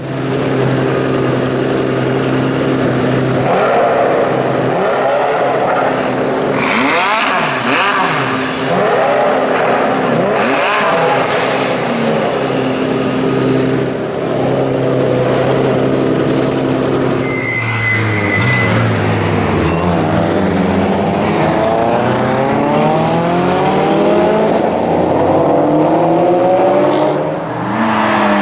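Performance cars running on a race track. In the first half an engine holds a steady note with revs rising and falling. From a little past halfway an engine accelerates hard, its pitch climbing again and again as it runs up through the gears.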